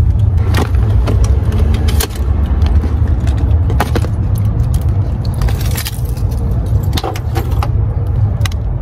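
Clicks, knocks and rattles of a plastic tote bag, purse and keys being handled at an open car door, over a steady low rumble.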